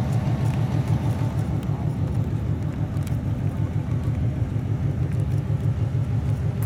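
Chevrolet Corvette's V8 idling, a steady low rumble with an even pulse from its exhaust.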